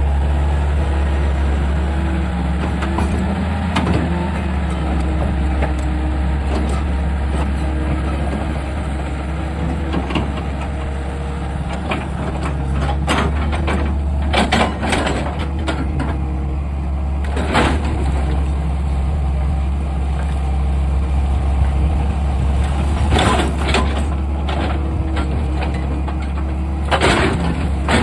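Heavy diesel engine of an excavator running steadily, with several sharp knocks or clanks in the second half.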